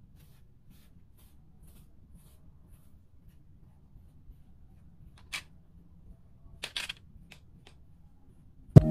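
Faint, soft strokes of a brush through a cat's long fur, repeating about twice a second, then a few sharp clicks past the middle. Music with chiming mallet tones comes in at the very end.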